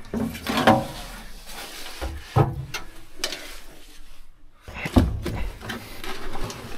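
Clunks and knocks from disconnecting a truck's old batteries: several separate sharp thumps, about half a second, two and a half and five seconds in.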